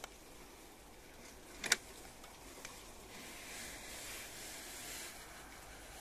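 Sliding knob and stay arm of a cam-latch awning window being moved as the sash swings open: one sharp click about two seconds in and a couple of fainter clicks, over a steady hiss.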